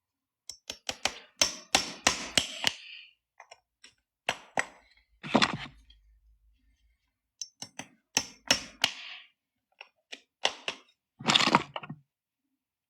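Hoof nippers cutting through a horse's hoof wall: irregular clusters of sharp cracks and snaps, with two longer crunching cuts in the middle and near the end.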